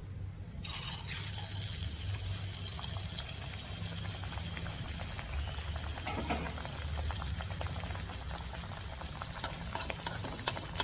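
Anarasa dough disc dropped into hot ghee in a metal kadhai: the ghee starts sizzling and bubbling suddenly under a second in and carries on steadily as the disc deep-fries. Near the end a spoon clicks and scrapes against the pan a few times.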